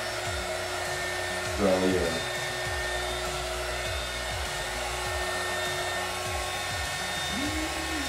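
A small handheld heat gun blowing steadily, a continuous hiss of air with a steady electric hum. It is drying the glue coat on a glitter-covered wine glass.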